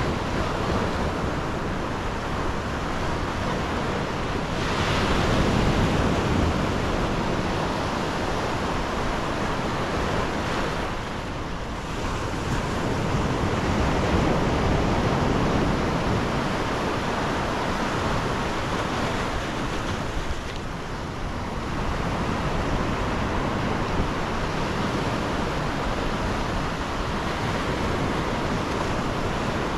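Sea surf breaking on a beach: a continuous wash that swells and ebbs, loudest about five and fourteen seconds in, with wind across the microphone.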